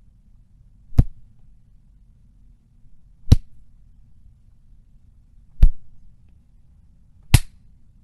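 Four separate punch sound effects, sharp hits with a heavy low thud, spaced about two seconds apart; the last one has a brief hissing tail.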